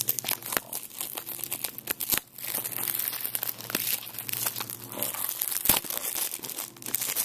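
Plastic shrink-wrap crinkling and crackling as it is pulled and picked off a DVD case, with a short pause about two seconds in.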